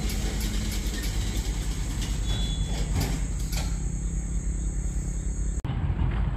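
Covered hopper cars of a freight train rolling past, steel wheels rumbling on the rails with faint regular clicks over the rail joints. The sound breaks off abruptly about five and a half seconds in and picks up again as a similar rumble.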